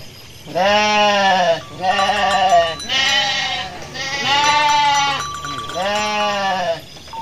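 Local Pantura (north-coast West Java) sheep bleating back and forth: about five long bleats, each rising and then falling in pitch.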